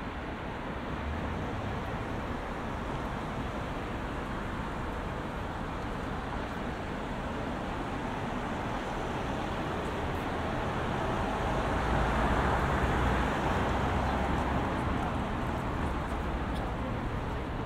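Steady road traffic: engines and tyres rumbling, growing louder about twelve seconds in and then easing a little.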